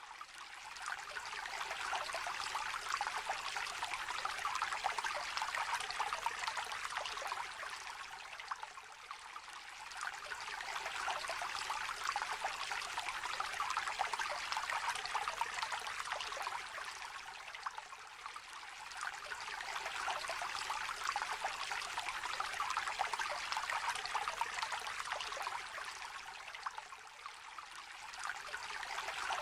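A small river trickling and babbling over stones, a continuous splashing rush that swells and eases about every nine seconds.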